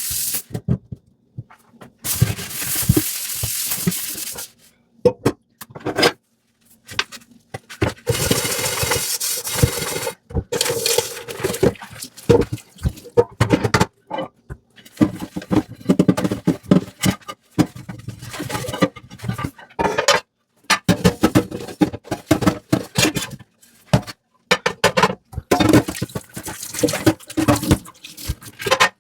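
Hand dishwashing at a sink: water runs in two short bursts of about two seconds each, around two and eight seconds in. In between come irregular clinks, knocks and scrubbing as dishes are handled and scrubbed.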